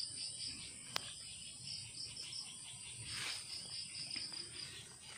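Field insects chirping in a fast, even pulse several times a second over a steady high insect hiss, with a single faint click about a second in.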